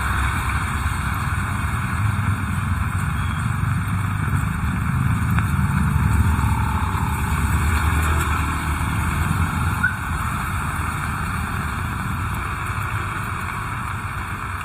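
Heavy rain falling steadily, with a low rumble that swells through the middle and fades, as of a vehicle passing on a wet road.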